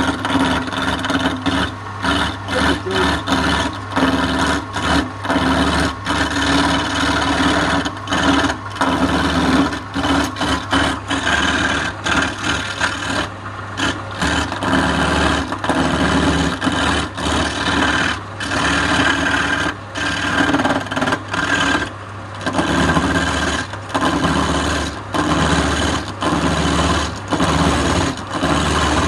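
Wood lathe running with a steady motor hum while a hand-held chisel scrapes and cuts into the spinning wooden blank. The cutting noise breaks off and resumes in short, uneven strokes as the tool is worked against the wood.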